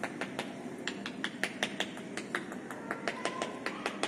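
Rapid, irregular sharp taps and clicks, several a second, over a steady low hum.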